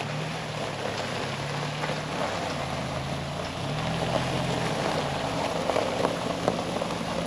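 A vehicle engine running at low speed while backing a trailer, its pitch dipping slightly and rising again partway through.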